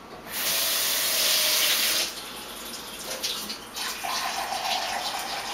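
Kitchen tap running hard for about two seconds, then a gentler flow, with water filling a cup from about four seconds in.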